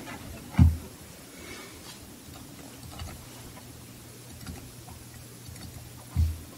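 Quiet room tone with two dull, low thumps, one about half a second in and one near the end, picked up by the lectern microphone. A faint low hum and a few small clicks lie between them.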